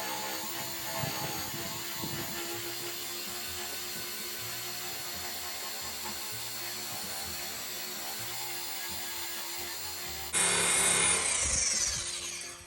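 Handheld electric drum sander with a diamond-encrusted drum running steadily against a steel truck bed panel, stripping it to bare metal. About ten seconds in it suddenly gets much louder, then its whine falls in pitch as the motor runs down.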